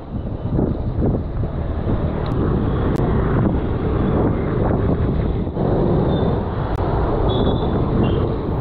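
Wind rumbling steadily on the microphone of a bicycle-mounted action camera while riding, mixed with the noise of passing motor traffic.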